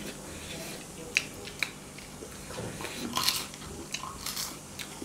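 Eating sounds: a fork clicking and scraping against a ceramic plate in a few sharp ticks, one pair about a second in and a cluster around three seconds, with soft chewing between.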